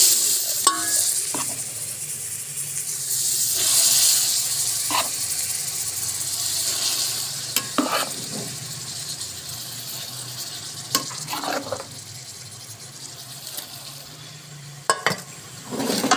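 Hot oil tarka of garlic, ginger and red chilli sizzling loudly as cooked saag is added to it. A spoon scrapes and knocks against the pots now and then. The sizzle peaks a few seconds in and dies down over the second half as the greens cool the oil.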